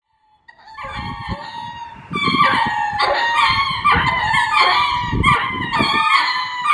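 Ring-tailed lemurs giving courtship calls: a run of repeated, pitched calls that begins about a second in and grows louder about two seconds in.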